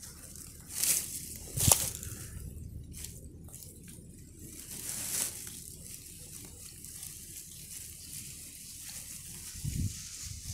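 A fish being put into a mesh keepnet at the water's edge: two sharp clicks in the first two seconds, then soft rustling of the net and dry reeds with light water sounds.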